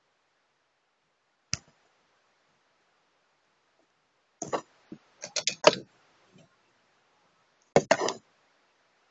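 Sharp clicks and clacks inside a parked car with the engine silent. One click comes about a second and a half in, a quick run of several near the middle, and two or three close together near the end, with almost no sound between them.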